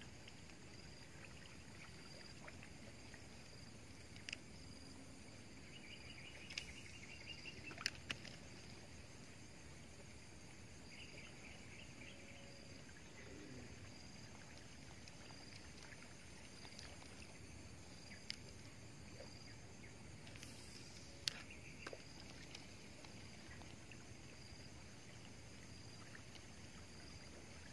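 Near-silent outdoor quiet with a faint high chirp repeating steadily, a few short chirping trills, and a handful of sharp clicks scattered through.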